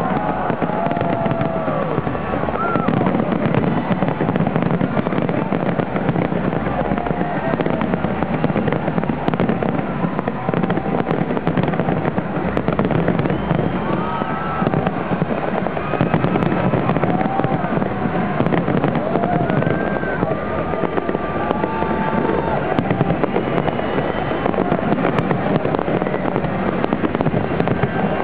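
Large aerial fireworks display: a dense, unbroken barrage of shell bursts, bangs and crackling, steady in loudness.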